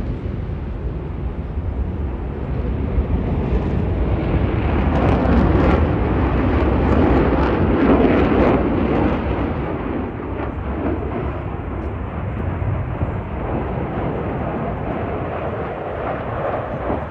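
Aircraft passing overhead: a deep rumbling engine noise that swells to its loudest about eight seconds in, then eases off.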